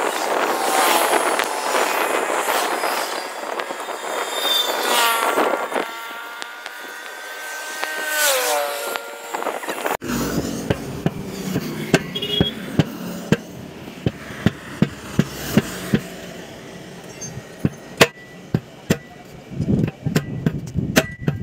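A loud rushing noise with a pitched tone that glides downward, then after a cut many sharp, irregular metal knocks: a tyre tool striking the steel rim of a tractor wheel as the tyre bead is worked on, over a low hum.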